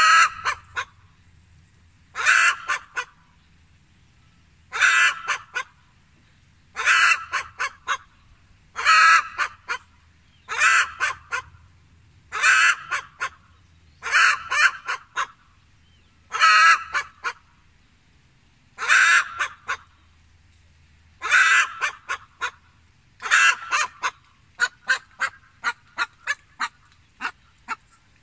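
A chicken cackling loudly, a call about every two seconds, each a short cluster of clucks; near the end it breaks into a quicker run of short clucks.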